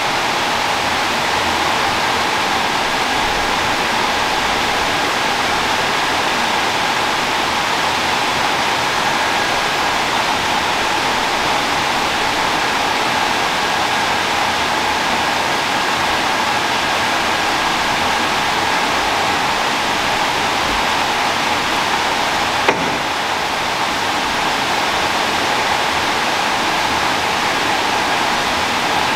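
Steady rush of running water, unbroken throughout, with one short click late on.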